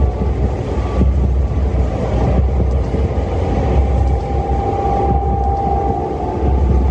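Loud, continuous low rumble that swells unevenly about once a second, under a noisy haze, with a thin high tone that comes and goes.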